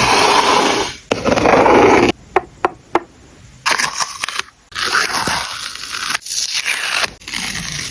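Close-miked paper handling for journal collage: paper scraping and rustling in long stretches, with three sharp clicks about two and a half seconds in.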